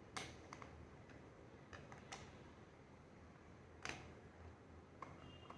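Scattered sharp clicks and ticks, a few seconds apart, from a screwdriver working at the small screws of a plastic Bluetooth speaker casing, over a quiet room.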